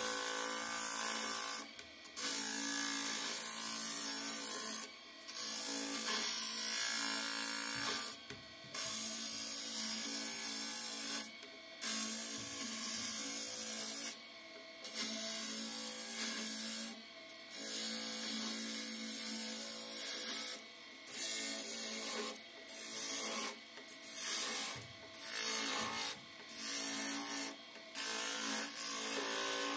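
Gouge cutting a spinning pale wood spindle on a wood lathe, a scraping cut with shavings coming off. About a dozen cuts of one to three seconds each, broken by short pauses as the tool is lifted off the wood.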